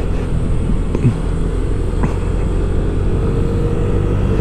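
Yamaha Aerox scooter's single-cylinder engine running steadily while riding, with road noise.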